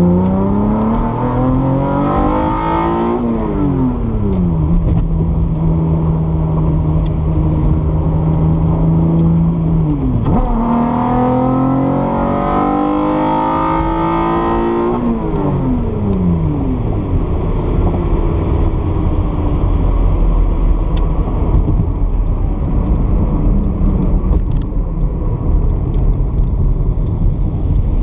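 Toyota 2GR-FE 3.5-litre V6 in a mid-engined MR2, heard from inside the cabin under acceleration. The revs climb, drop sharply on an upshift about three seconds in, and hold steady for several seconds. They climb hard again from about ten seconds in and drop on another upshift around fifteen seconds, then the engine settles into a low cruise under road and tyre noise.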